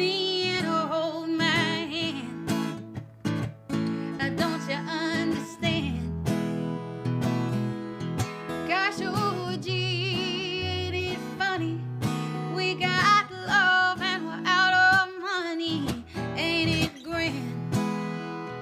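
A woman singing a country song with wavering held notes over a strummed acoustic guitar; the voice comes in phrases, with guitar alone in between.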